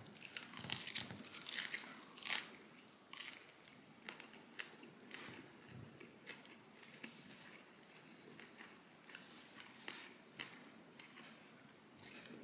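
A person biting and chewing baked pasta with a crispy mozzarella crust: crisp crunches, louder in the first few seconds, then softer chewing.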